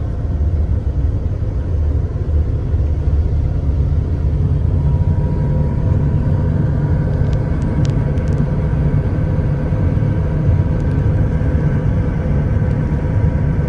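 Passenger ferry's engines running under way, heard as a loud, steady low rumble inside the cabin, with a faint steady whine above it from about halfway in.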